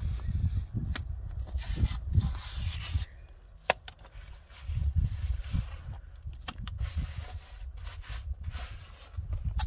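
Wet cement mortar being pressed and smoothed by hand around a window frame on a block wall: uneven scraping and rubbing, with a low rumble underneath and one sharp click a little before four seconds in.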